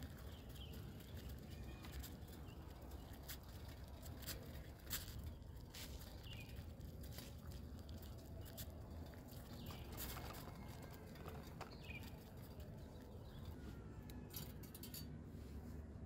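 Light clicks and taps of a metal hand coffee grinder being knocked to empty its ground coffee into a paper filter, over a steady low rumble, with a few short bird chirps in the background.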